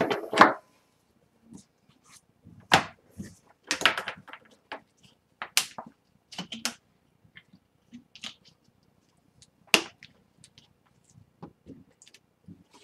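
Scattered short clicks and knocks at irregular intervals, like handling noise at a wooden table.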